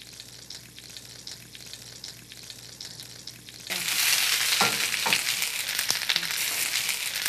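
Rendered chicken fat sizzling faintly with small crackles in a hot stainless skillet. A little over halfway through, a bowlful of sliced Spanish onions is tipped in and the sound jumps at once to a loud, steady frying hiss.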